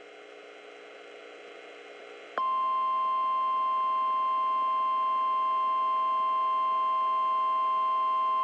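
Faint radio hiss, then about two and a half seconds in the NOAA Weather Radio 1050 Hz warning alarm tone starts abruptly: a loud, steady, unbroken beep. It is the signal that a warning message is about to follow.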